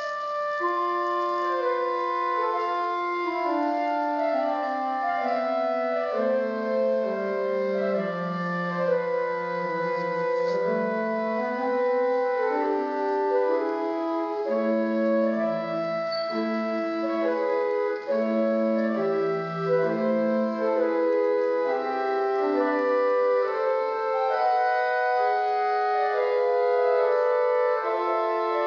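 Pipe organ playing a classical passage of held chords, several voices moving note by note beneath a sustained upper part.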